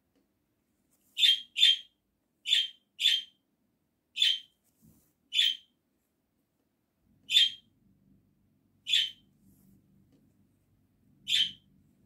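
Embroidery thread being pulled through cross-stitch fabric, nine short high zips at an irregular pace, each one a stitch drawn tight.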